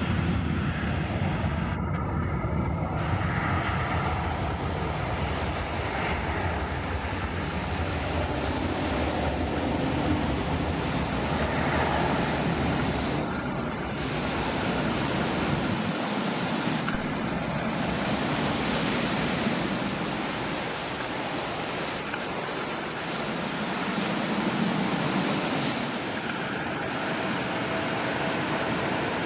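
Steady rushing noise of wind on the microphone and sea surf, with a low rumble that eases off about halfway through.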